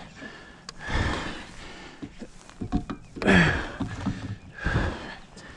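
A man breathing hard in three heavy gusts, from the strain of fighting a large striped bass.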